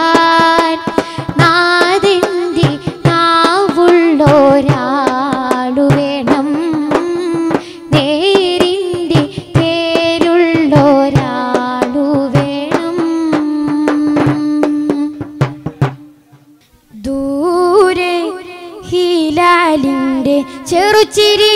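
Music: a wavering melodic line with percussion over a steady held note, breaking off briefly about sixteen seconds in before starting again.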